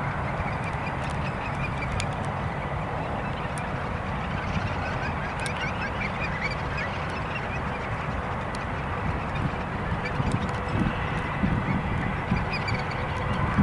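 Boeing 747-400 jet on final approach, its four Rolls-Royce RB211 turbofans giving a steady rumble. Birds call over it at times, most around the middle.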